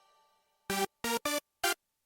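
Kurzweil PC3K7 synthesizer patch played as four short staccato stabs, each at a different pitch, about a second in, after the last note of the previous sound fades out.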